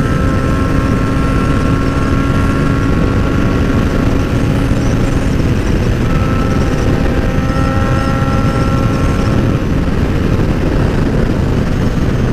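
Motorcycle cruising at a steady highway speed, heard from on board. Heavy wind rush over the microphone is mixed with a steady engine drone, whose tone fades somewhat in the middle and returns.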